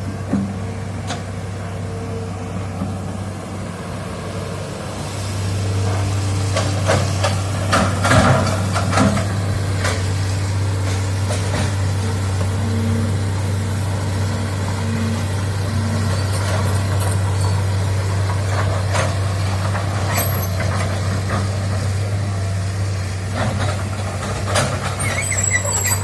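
Hitachi excavator's diesel engine running under load, growing louder about five seconds in and then holding steady, with scattered knocks and clanks.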